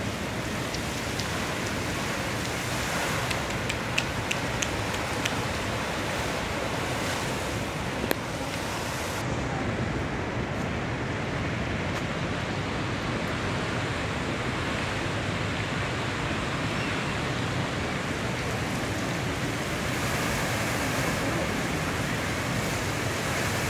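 Dancing fountain's water jets spraying and splashing back into the lake: a steady rushing hiss of falling water, with a few sharp clicks about four and eight seconds in.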